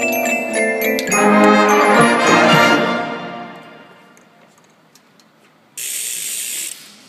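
Marching band playing: brass and mallet percussion, with a full brass chord swelling about a second in and then fading almost to nothing. Near the end a sudden burst of hiss lasts about a second and stops.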